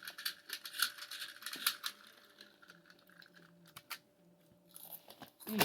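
Soft, irregular crunching clicks of a snack being chewed, thickest in the first two seconds, over a faint steady hum.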